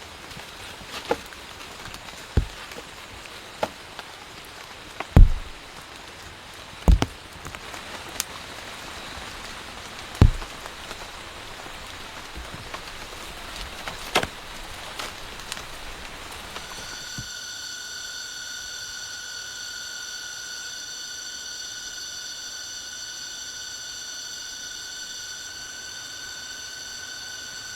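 Irregular heavy knocks, one every one to two seconds, over a steady hiss; about two-thirds of the way in the knocks stop and a steady high-pitched drone of several level tones takes over.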